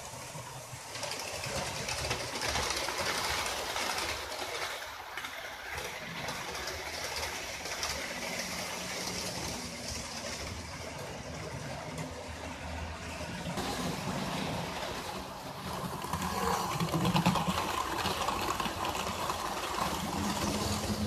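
Model train running round a layout: a small electric locomotive's motor and the wheels of its coaches rolling on the track in a continuous run, louder for a few seconds near the end as the train comes close.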